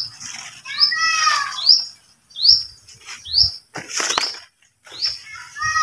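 Birds calling: a short high note repeated about every three-quarters of a second, with a lower falling call about a second in and again near the end. A brief burst of noise about four seconds in.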